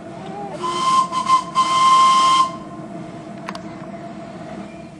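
Steam whistle of the miniature single Fairlie locomotive Tinkerbelle sounding for about two seconds, with a hiss of steam, briefly broken twice before a longer final blast.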